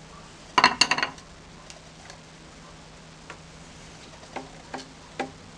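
Metal clicks and rattles from a homemade crossbow's trigger mechanism, a wrench used as the string latch, being worked by hand. A quick burst of clicks comes about half a second in, then single clicks every second or so.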